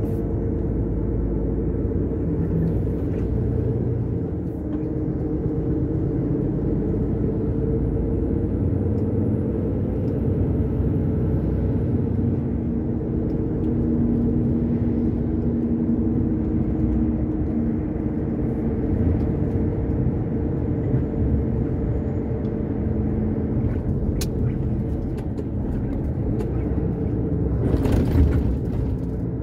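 Truck's diesel engine running steadily as the lorry drives along, heard from inside the cab with low road rumble; a brief louder rush near the end.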